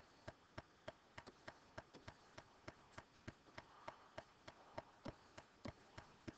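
Near silence with faint, sharp clicks repeating evenly about three times a second.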